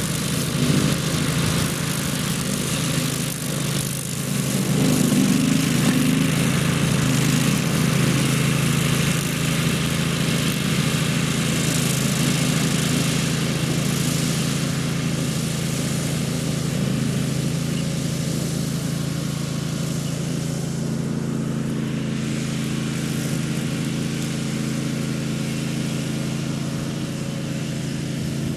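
Grillo Climber 9.21 ride-on mower's engine running steadily under load while it mows tall grass on a slope. The steady drone is loudest about five seconds in and grows a little fainter in the second half as the mower moves off.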